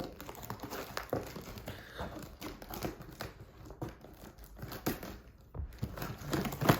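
Packing tape being cut and the package's wrapping crinkling and tearing as it is opened, in a run of irregular rustles and small clicks.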